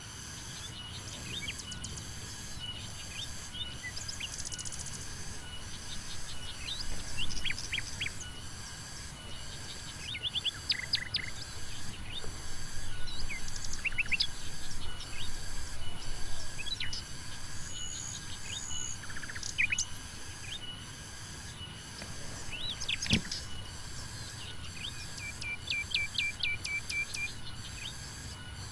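Small birds chirping in short calls and trills over a steady, pulsing insect buzz, with one sharp click about two-thirds of the way through.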